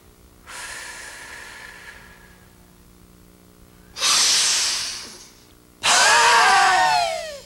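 A woman's exaggerated exercise breathing: a quieter drawn breath early on, then a loud hissing breath out about four seconds in, then a loud voiced "haaa" through a wide-open mouth near the end, falling in pitch.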